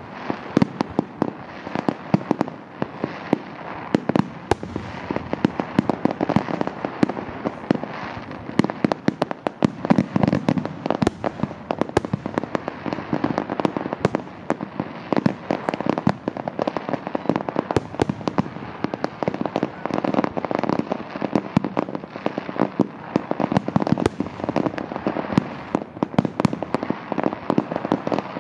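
Fireworks display going off in a dense barrage: many sharp bangs in quick succession over a steady noisy background, without any pause.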